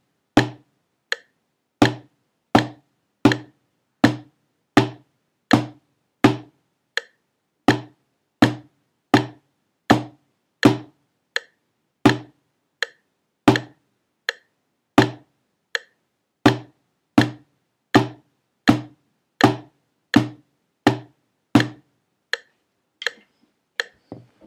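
Drumsticks striking a practice pad in a steady beat of about 80 a minute, one stroke to each metronome click. On a few beats only the metronome click sounds, and near the end the pad strokes stop while the metronome ticks on.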